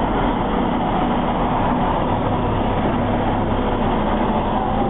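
Steady city street noise: a dense, even rumble of traffic with a faint constant hum running through it.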